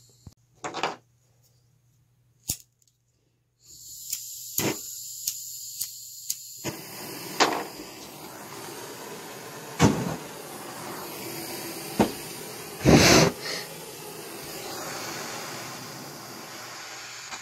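Propane torch burning with a steady rushing noise, broken by several sharp, loud pops; the loudest is a longer burst about two-thirds of the way through. Before the torch is lit there is a high hiss with a quick run of clicks.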